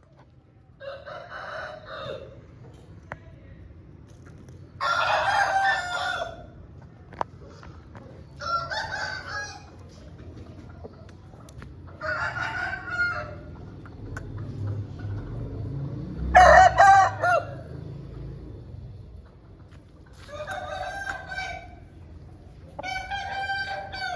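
Aseel rooster crowing repeatedly: about seven short crows a few seconds apart.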